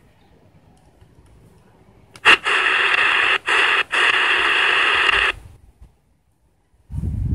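Speaker of a Grundig Reporter shortwave radio being tuned up the band. After a faint hiss, loud static-like noise comes in about two seconds in and lasts about three seconds, cutting out briefly twice as the frequency steps, then stops. A low rumble starts near the end.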